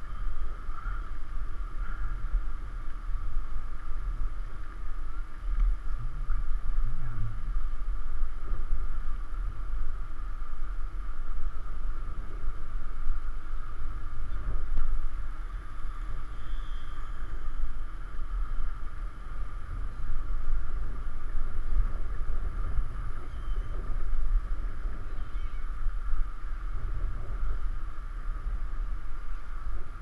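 Wind rushing over a GoPro's microphone while riding a bicycle, a steady low rumble mixed with the rolling noise of the bike, with a faint steady hum underneath.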